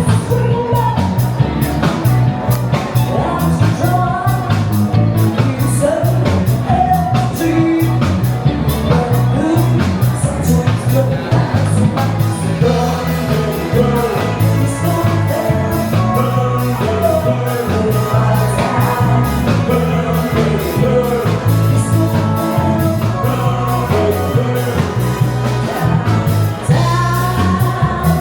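Upbeat rock-style music with a lead singer and a steady drum beat.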